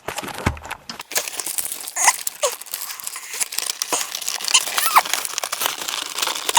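Plastic Trackmaster toy engines being packed into a box: dense rustling and crinkling, with many small clicks and knocks as the pieces are pushed in.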